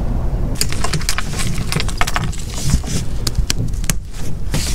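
A canvas boat cover being handled and spread over a sailboat's deck: fabric rustling with a quick run of light clicks and clinks, over a steady low rumble.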